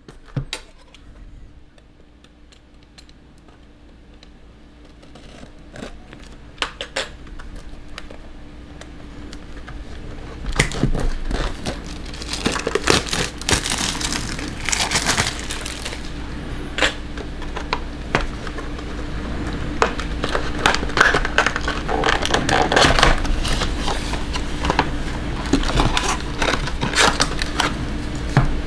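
Trading card hobby box being unwrapped and opened by hand: plastic wrapper crinkling and tearing and cardboard handled. There are sparse small clicks for about the first ten seconds, then denser, louder crinkling, over a faint steady hum.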